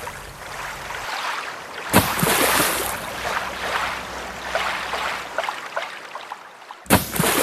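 Rushing whitewater with splashing, heard from on the water, surging suddenly louder about two seconds in and again near the end.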